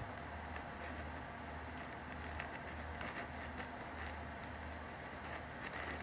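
Faint low hum of room tone, with scattered light clicks and rustles.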